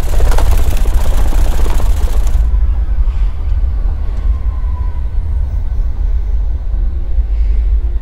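Train running, heard from inside the carriage: a steady, deep rumble, with a loud rushing hiss over it for the first two seconds or so.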